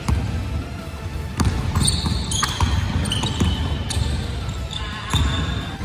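A basketball dribbled on a wooden gym floor, thumping about twice a second. Sneakers squeak sharply on the floor as the players cut and drive.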